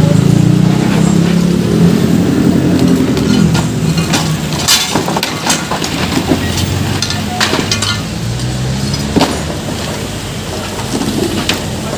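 Metal window frames, grilles and wooden boards being dragged, dropped and tossed onto a debris pile during demolition of a makeshift stall: repeated clinks, clatters and knocks, busiest about four to six seconds in, over a low background rumble that fades after the first few seconds.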